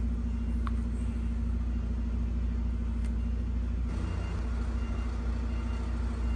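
Portable butane camping stove burning under a wok, a steady low roar.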